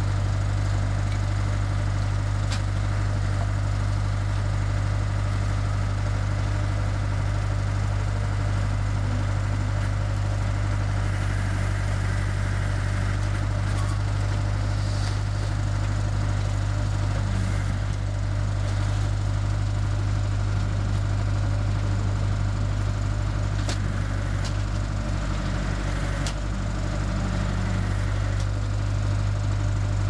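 Tractor engine running steadily, driving the backhoe's hydraulic pump through the PTO shaft while the backhoe digs a trench. A few short sharp knocks cut through it, one a couple of seconds in and three close together near the end.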